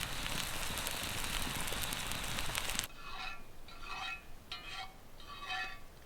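Campfire cooking crackling and hissing, with sharp pops, which cuts off suddenly about three seconds in. After it come five short, repeated pitched calls, about one a second.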